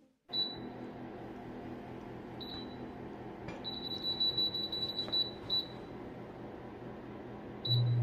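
Gourmia air fryer's touch-screen control panel beeping as its buttons are pressed: single high beeps, then a quick run of beeps while the cooking time is stepped up, and another beep as preheat starts. A loud low hum comes on near the end.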